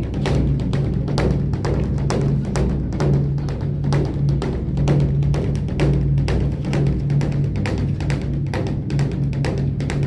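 Large Buddhist temple drum (beopgo) beaten rapidly with two sticks, several strokes a second over a continuous deep booming resonance, in the rolling pattern of a temple's drum ritual.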